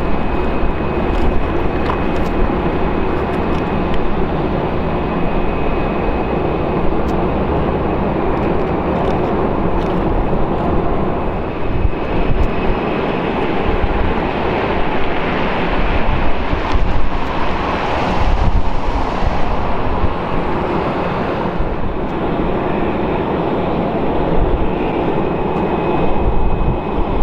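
Steady jet aircraft noise on an airport apron: an even rushing sound with a faint thin high whine over it, swelling briefly and easing off about two-thirds of the way through.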